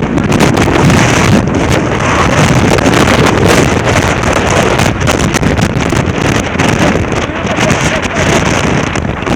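Wind and rushing air buffeting the microphone on a moving light motorcycle, with the bike's engine and road noise underneath, a loud, steady rush.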